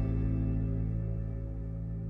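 Slow ambient background music of long held low notes that fade gradually.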